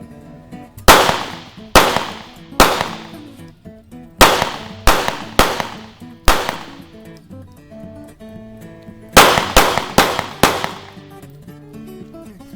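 Beretta PX4 Storm semi-automatic pistol firing about eleven shots. The first seven come roughly a second apart, then after a pause of a few seconds four more follow in quicker succession, each crack trailing off briefly.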